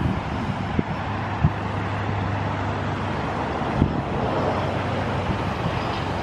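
Steady rushing of water pouring over a river dam's spillway, with wind buffeting the microphone in a few brief low thumps.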